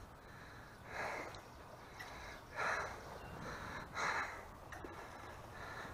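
A man breathing hard close to the microphone, three breaths about a second and a half apart.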